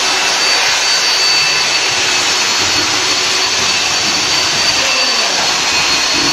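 A motor-driven machine running steadily: a loud, even rushing hiss with a thin high whine over it.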